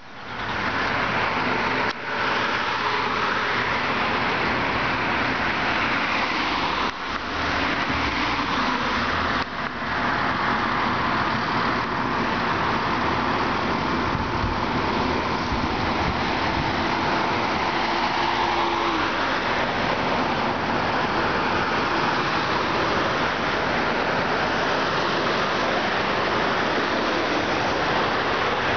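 Steady traffic and road noise, a continuous rushing hiss.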